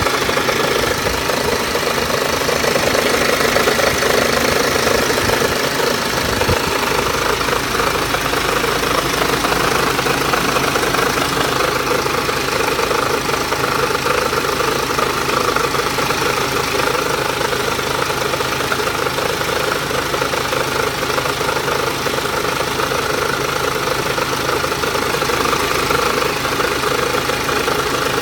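BMW X1 23d's N47S D20 four-cylinder diesel engine running steadily at low revs with a strange sound that the owner cannot place.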